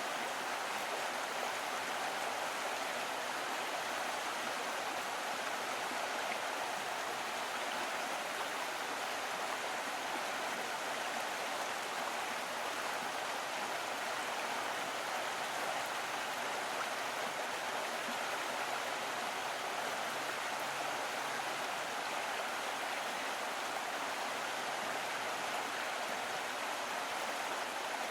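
Small stream of water running over stones: a steady, even rush and babble with no break.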